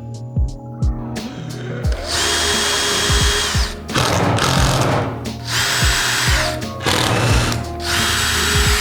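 Power drill running in three short bursts with a high whine that drops as each burst stops, over background music.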